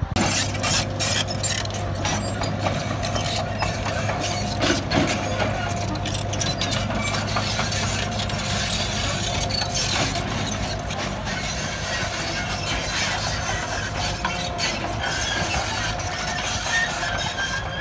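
Heavy diesel machinery running steadily under load, with many irregular metallic clicks and clanks throughout.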